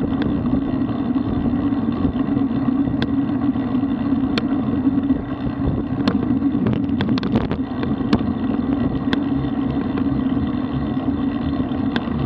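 Steady rumble of a road bike in motion, tyres on asphalt and wind over the camera's microphone, with scattered sharp clicks and knocks from the bike and mount over the road surface.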